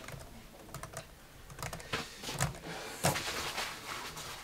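Computer keyboard keys clicking in short, irregular runs of soft keystrokes.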